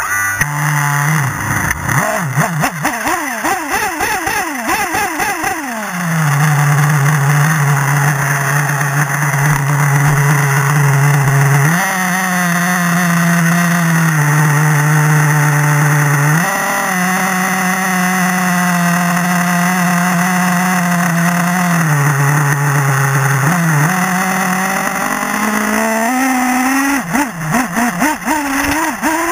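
Small nitro engine of a 1/8-scale RC buggy, heard up close from an onboard camera. For the first few seconds after starting it is blipped up and down, then it runs at a steady high idle whose pitch steps up and down slightly a few times. Near the end it revs up and down again.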